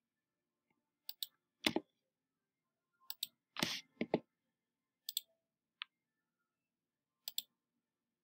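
Computer mouse button clicking in quick pairs, about every two seconds, as scene tabs are clicked through. Between them come a few louder, duller knocks and a short rustle.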